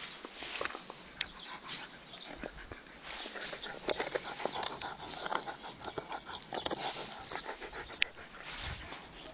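A dog panting, with scattered sharp clicks and knocks.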